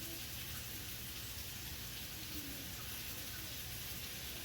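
Butter and minced garlic sizzling steadily in a frying pan, a constant fine hiss.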